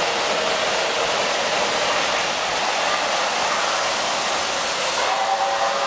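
Lionel three-rail model subway train running on its track: a steady whirring rush of motor and wheels on metal rail. A faint steady whine joins in about five seconds in.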